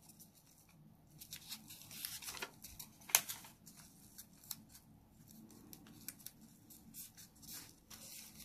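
Sheet of origami paper rustling and being creased under the fingers as a corner is folded inward, in faint short scratchy strokes, the loudest a little after three seconds in.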